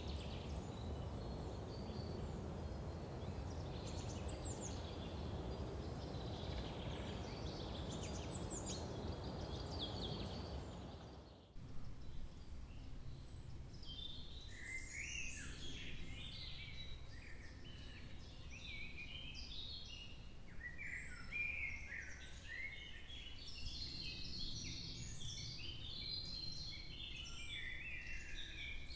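Woodland birds singing over a steady low rushing background. About a third of the way in the rushing drops away abruptly and a busier chorus of many quick, varied chirps takes over.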